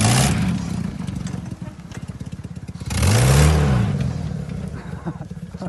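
Suzuki Vitara's 1.6-litre eight-valve four-cylinder engine running under way, revving up and dropping back once about three seconds in, with a loud rush of noise at the same moment.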